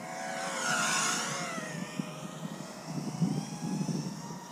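FPV quadcopter's motors and propellers whining as it flies past, loudest about a second in and fading over the next second, the pitch of the whine shifting as it goes by.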